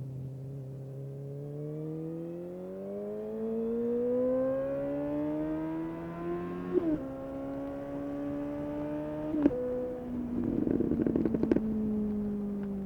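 2019 Suzuki GSX-S750's inline-four engine through a decatted Yoshimura SQ11 exhaust with no dB killer, accelerating hard with the revs climbing, then dropping sharply at gear changes about seven and nine and a half seconds in. A run of sharp crackles follows, and then the revs fall steadily as the bike slows.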